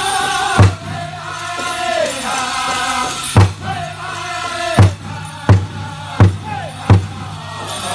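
Powwow drum group singing a men's chicken dance song: men's voices chanting together over a big powwow drum. The drum is struck once about half a second in, then, after a pause, beats steadily about one and a half times a second.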